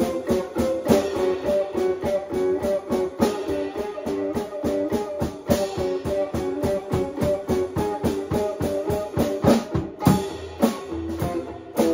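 A band rehearsing: a guitar strumming rhythmic chords over a drum kit.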